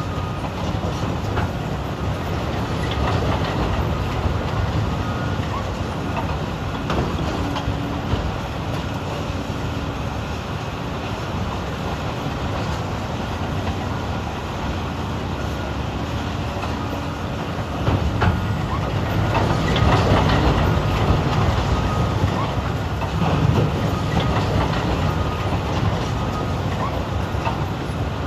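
Caterpillar 395 excavators' diesel engines running under load alongside idling haul trucks, with rock clattering and crunching as the buckets dig and dump into the trucks' beds. The sound gets louder for a few seconds about two-thirds of the way in.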